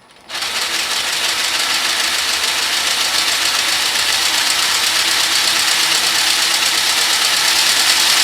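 3D-printed plastic model of a W16 engine spun at high speed by an electric drill on its crankshaft: the drill's motor and the printed pistons and linkages clatter fast and steadily. It starts suddenly just after the beginning and grows slightly louder.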